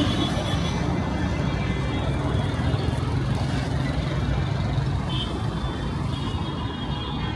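Busy road traffic: vehicle engines running steadily close by, with a continuous low hum of traffic.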